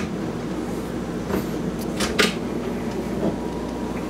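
A wooden galley cabinet door being unlatched and swung open: a few sharp clicks and knocks from its push-button latch and door, over a steady low hum.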